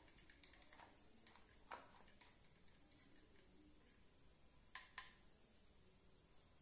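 Near silence with a few faint, scattered clicks of a stirring stick knocking against a test tube while mixing, and two sharper clicks in quick succession about three-quarters of the way through.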